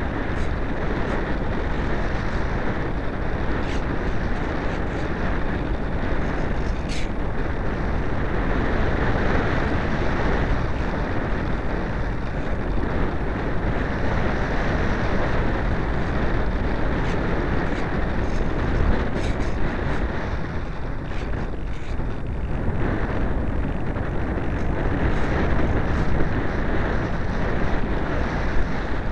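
Steady rush of air and motor noise picked up by a small camera riding on board an EasyStar RC foam model plane in flight, with no clear pitch and a few faint clicks.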